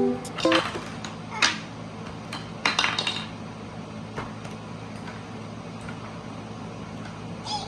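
Clatter of small hard toy pieces being handled, with a few sharp clicks in the first three seconds and quieter knocks after, over a steady low hum. The last notes of a ukulele tune end right at the start.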